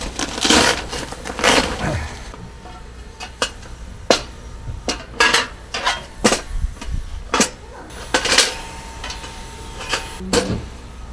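Thick stainless-steel plates of a take-apart fire pit clanking and clinking as they are handled. It comes as a string of irregular separate metal knocks, some ringing briefly.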